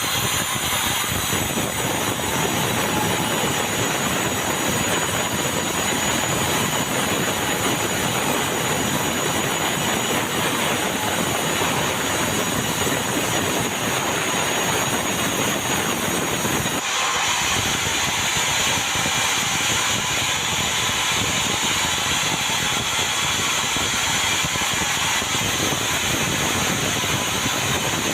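A sawmill saw running and cutting meranti timber: a loud, steady mix of motor and cutting noise. The sound shifts abruptly about seventeen seconds in.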